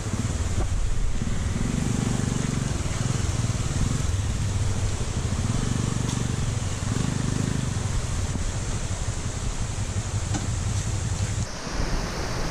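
Motorcycle engine running on the move, its low rumble rising and falling a little, with wind rushing over the microphone. Near the end it cuts abruptly to a steady, even rushing hiss.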